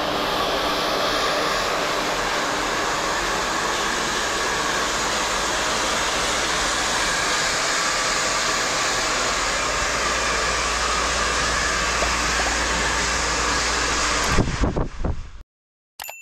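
Handheld hair dryer blowing steadily on short hair. Near the end there are a few handling knocks, and then it cuts off suddenly. A short bright ding follows right at the end.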